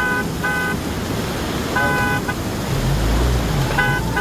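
A vehicle horn honking in a series of short toots, about five, over continuous noise and a brief low rumble about three seconds in.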